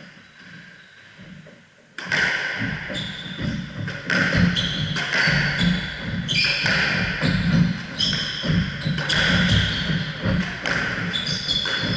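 A squash rally in an echoing court: the ball cracks off racquets and walls again and again, with quick footsteps and shoe squeaks on the wooden floor. It starts suddenly about two seconds in and keeps going.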